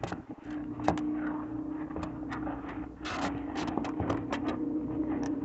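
A cardboard gift box being handled and opened by hand: irregular rustles, scrapes and light taps as its elastic cord is slipped off, over a steady low hum.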